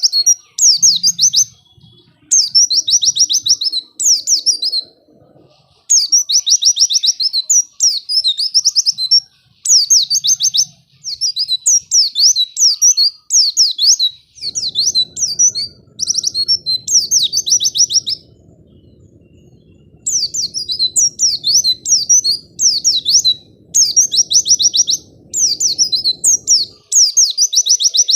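White-eye (pleci) song: rapid, high twittering phrases of a second or two each, repeated with short pauses and two longer breaks.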